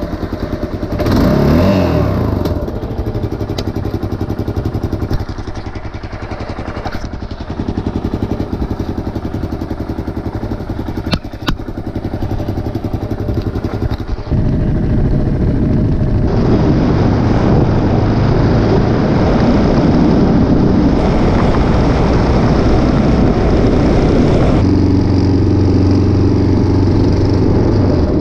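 Kawasaki KLR 650 single-cylinder engine just after starting: a quick rev about a second in, then a steady idle. From about fourteen seconds in it runs louder and rougher as the bike rides off.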